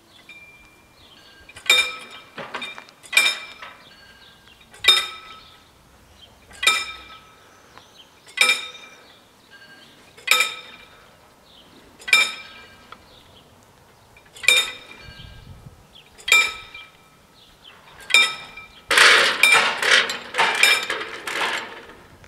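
Level-crossing warning bell striking about once every 1.8 seconds, each strike ringing on, then a fast flurry of strikes for about two seconds near the end. It is the warning that the crossing is closing and its barriers are lowering.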